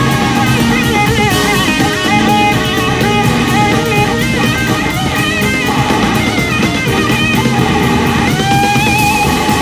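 A rock band plays live under an electric slide guitar solo on a Gibson SG, over drums and bass. The solo lines waver in pitch, and one line slides upward near the end.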